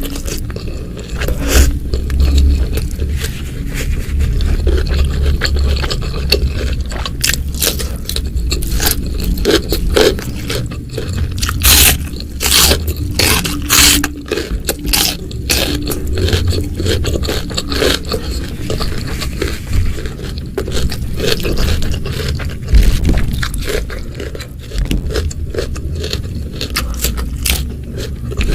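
Close-miked eating: a person biting and chewing crunchy food, with many irregular crisp crunches and soft low thuds of chewing.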